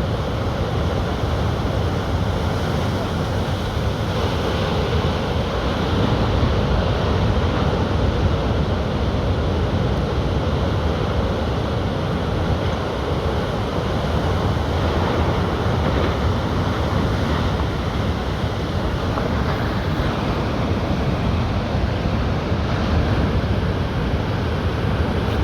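Steady sea surf breaking, with wind rumbling on the microphone.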